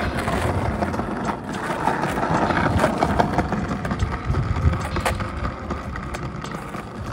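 Skateboard wheels rolling over stone paving tiles with a steady rumble, broken by a few sharp clacks of the board against the ground.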